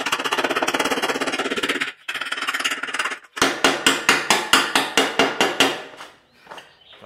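Slag being knocked off a fresh stick-weld bead on steel with a chipping hammer: a fast clatter of metal-on-metal strikes for about two seconds, a short break and more clatter, then about a dozen separate sharp strikes at five or six a second that stop about six seconds in.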